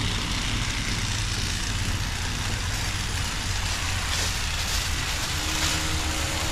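A vehicle engine running steadily: a constant low hum under an even rushing noise.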